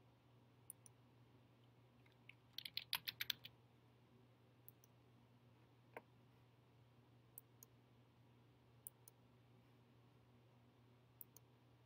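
Faint typing on a MacBook Air keyboard: a quick run of about ten keystrokes around three seconds in, with scattered single clicks before and after.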